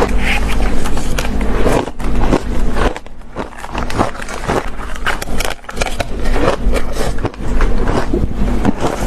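Ice being bitten and chewed close to the microphone: dense, irregular crunching and cracking, with a short quieter lull about three seconds in.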